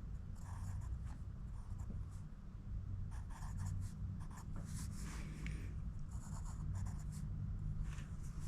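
Faint, scattered scratching and rustling from hand work, over a steady low hum.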